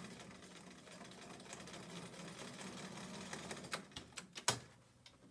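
Bernina electric sewing machine stitching steadily through fabric strips, stopping about three and a half seconds in. A few sharp clicks follow, the loudest just before the end.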